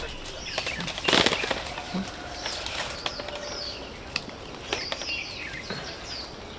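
Small birds chirping in short, repeated falling notes, with a brief noisy burst about a second in and a few light ticks.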